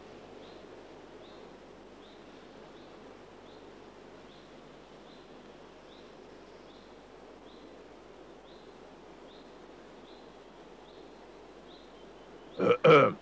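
Quiet outdoor ambience over a steady soundtrack hiss, with a faint high chirp repeating about twice a second. Near the end come two loud, brief calls from a voice in quick succession.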